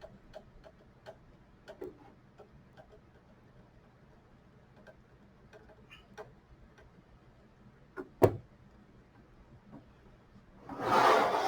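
Faint, irregular small metal ticks as a screw is driven into the switch's air-duct bracket, a sharp click about eight seconds in, then a loud scraping rub of metal parts near the end.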